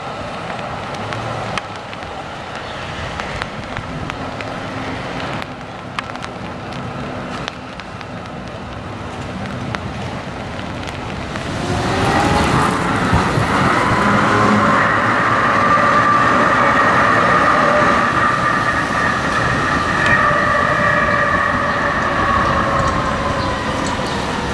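Oslo street trams running on their rails. The first half is low rolling street noise with a few clicks. About halfway through, a tram passing close by sets up a loud, steady whine of several tones that sags slightly in pitch near the end.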